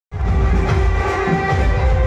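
Loud music with a heavy bass and held melody notes, played through a large outdoor DJ sound system on a lit procession truck.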